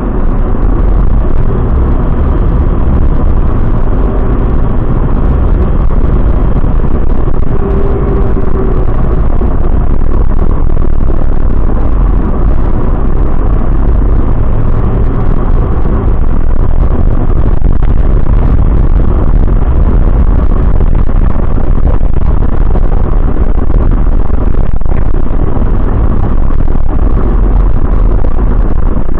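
Coach driving along, heard from the driver's cab: a steady, loud engine and road rumble.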